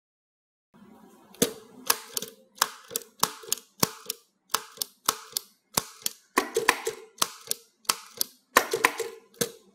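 Typewriter keys striking the paper one letter at a time, sharp irregular clacks about two a second, some in quick pairs, over a faint steady hum. The typing starts about a second and a half in.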